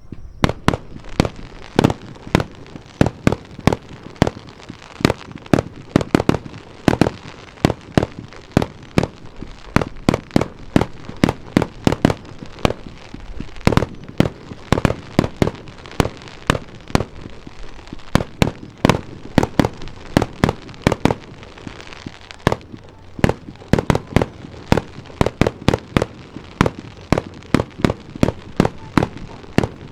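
Aerial fireworks display: shells bursting in a rapid, unbroken string of sharp bangs, two or three a second.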